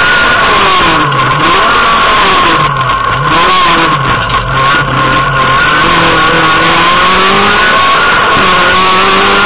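Renault Clio Williams rally car's 2.0-litre four-cylinder engine heard from inside the cabin under hard driving, very loud. The revs rise and fall again and again as it accelerates, brakes and shifts: several quick drops in the first half, then a long climb that breaks off near the end and picks up again.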